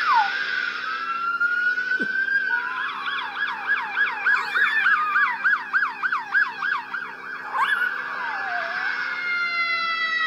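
Police siren passing on the street, a slow rising wail that switches to a fast yelp of about three warbles a second, over a steady low hum. Near the end a Russian Toy Terrier starts howling along in long falling notes, mimicking the siren.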